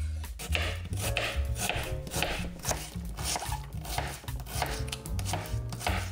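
Chef's knife dicing an onion on a wooden cutting board: a steady run of crisp chops, about two a second, each one the blade cutting through onion and knocking the board.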